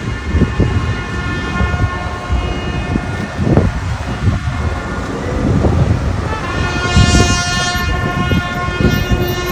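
Several long, steady horn-like tones held together as a chord, swelling louder about seven seconds in, over a low rumble of wind noise.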